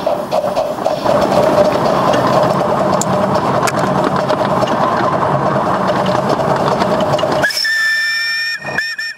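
Bassett-Lowke Class 30 narrow-gauge steam locomotive running along the track, then about three-quarters of the way through its steam whistle blows, a single held note that breaks off briefly twice near the end.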